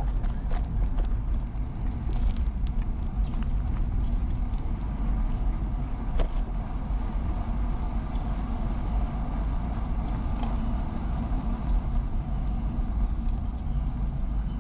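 Steady low rumble of wind and road noise while riding an early-1970s Peugeot UJ-10 ten-speed bicycle, with a few light clicks and rattles scattered through it.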